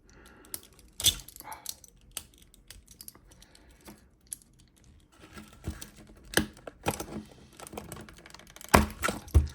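Irregular clicks, taps and scrapes of a small tool working against a plastic toy's battery compartment, prying at corroded, leaked batteries that are stuck in place. The sharpest clicks come about a second in and twice near the end.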